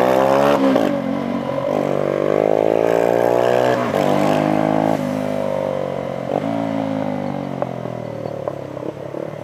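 Small motorcycle engine accelerating through the gears: the pitch climbs, drops at a gear change about half a second in, climbs again and drops at another change about four seconds in, then runs lower and steadier as the bike eases off.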